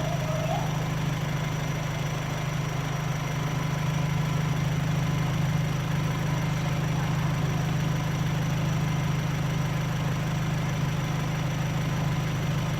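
Vauxhall/Opel Z20LET 2.0-litre turbocharged four-cylinder engine, rebuilt with forged internals, idling steadily on its second start-up without a misfire.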